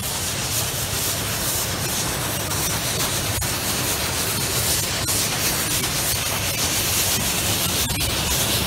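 Steam train rolling slowly across a steel bridge, its wheels clicking a few times over the rail joints, over a steady hissing rush.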